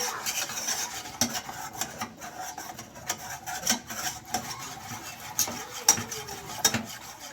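Spoon stirring and scraping a béchamel of flour, butter and milk in a pan, with frequent irregular clicks of the spoon against the pan.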